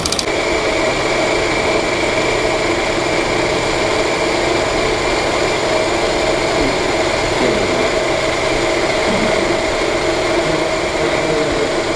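Steady machine hum with several constant tones, even throughout, with faint voices in the background.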